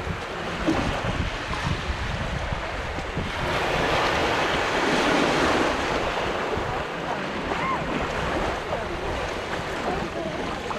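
Mediterranean sea waves breaking and washing up the beach, one wave swelling and breaking about four seconds in, with wind rumbling on the microphone.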